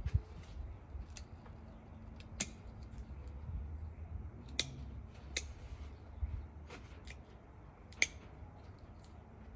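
Scissors snipping through succulent stems as cuttings are taken: several sharp snips, a second or two apart.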